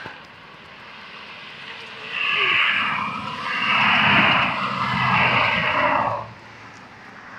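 Road traffic passing close beneath: a rush of tyre and engine noise that swells about two seconds in, with a deep lorry engine strongest around four seconds, then falls away at about six seconds.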